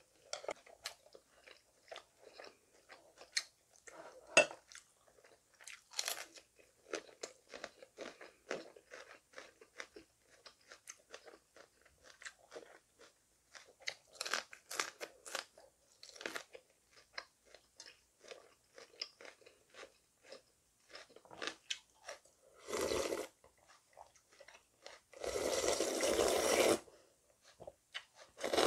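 Close-up eating sounds: a person chewing crunchy food, among it a raw green chili pepper, with many small crisp crunches. Near the end come two slurps, a short one and then a longer, louder one, as broth is drunk from the bowl.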